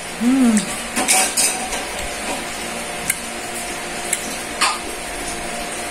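Fingers picking food off a plate while eating by hand: scattered light clicks and scrapes against the plate, with a short rising-and-falling hum near the start.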